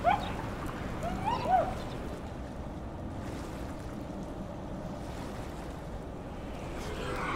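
Steady outdoor background noise, a low even rumble like wind on the microphone. There are a couple of brief voice sounds in the first two seconds.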